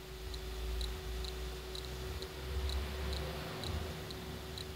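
Faint, even ticking, about two ticks a second, over a steady low hum, with a low rumble from the circuit board being handled close to the microphone.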